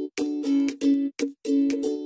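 Background music of short, choppy chords played in a quick stop-start rhythm.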